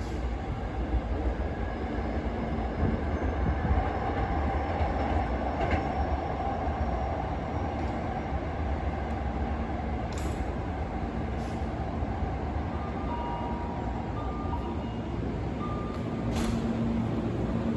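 Hankyu electric train running along the track with a steady low rumble and wheel-on-rail noise, with a few brief sharp clicks.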